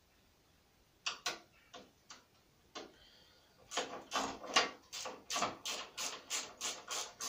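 Tools clicking on metal as the number plate bolts are tightened. A few scattered clicks come first, then from about halfway in a steady run of clicks, roughly three a second.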